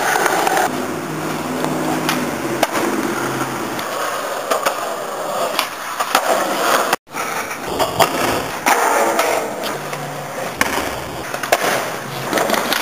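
Skateboard wheels rolling over concrete, with sharp pops and clacks of the board during flatground tricks. The sound breaks off for a moment about seven seconds in.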